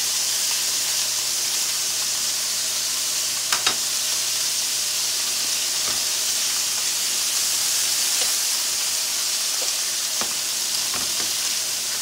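Lamb chops and steaks searing in hot skillets, a steady sizzle, with a few light clicks and knocks as the chops are turned in the pan.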